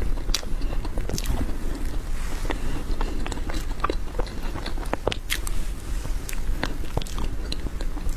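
Close-up eating sounds of a person chewing spoonfuls of whipped-cream sponge cake, with irregular sharp clicks scattered throughout.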